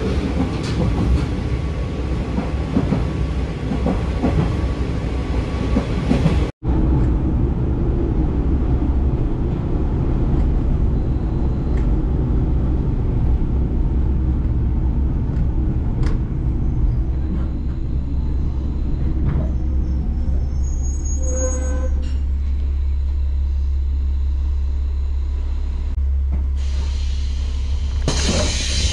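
Inside a local train car: the train's steady deep rumble and running noise as it pulls into the station. There is a short squealing tone about three quarters of the way through, and a brighter hiss near the end as the door-open button is pressed.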